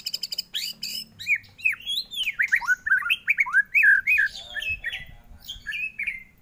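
White-rumped shama (murai batu) singing: it opens with a fast rattling trill, then runs into loud, arching whistled notes that sweep up and down, softer near the end.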